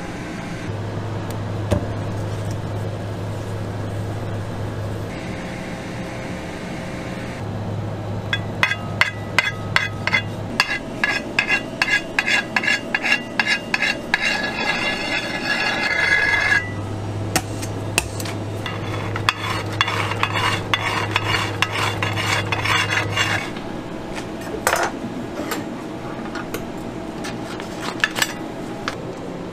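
Metal icing spatula scraping and clicking against a metal cake turntable while smoothing cream frosting: long runs of rapid clicks with a metallic ring. A low steady hum starts and stops several times.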